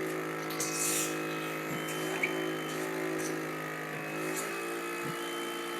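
Cough assist machine's blower running with a steady whine that shifts pitch a little about half a second in and again near the end, with a short rush of air about a second in.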